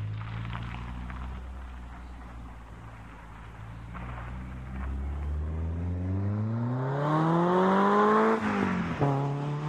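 Renault Clio Sport 172's 2.0-litre four-cylinder through an aftermarket EPS exhaust, driving off and then accelerating hard: a low steady drone, then the engine note climbs for a few seconds to its loudest, drops sharply at an upshift about nine seconds in, and picks up again at a lower pitch. The exhaust is a little too loud for its owner's liking.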